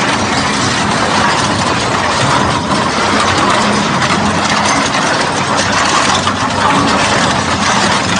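Hydraulic two-shaft shredder running and breaking up scrap aluminum engine blocks. It is loud and steady throughout: a constant clatter of metal breaking over a low machine drone.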